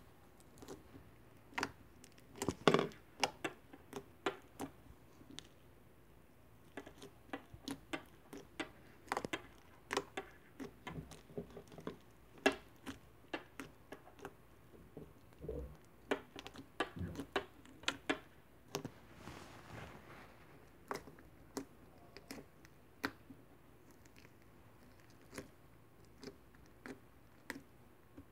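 Soft white slime with foam beads being poked and squeezed by fingers: irregular sharp clicks and pops, some louder than others, with a brief squishing stretch about two-thirds of the way through.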